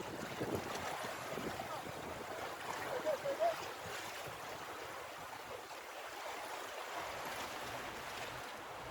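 Steady rush of sea water moving and washing against shore rocks in a fast tidal current. A few short pitched chirps come about three seconds in.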